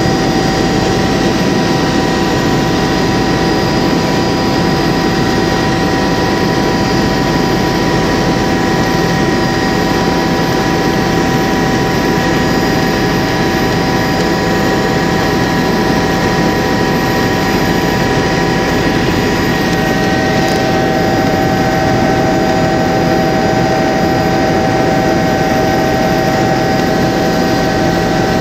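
Helicopter in flight: engine and rotor noise as a steady, loud drone, with a few steady whining tones held over it.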